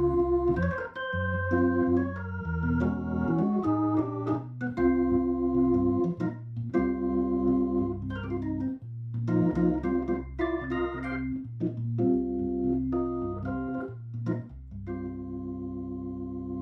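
Hammond organ playing jazz chords in short rhythmic stabs over a low bass line, ending on a long held chord.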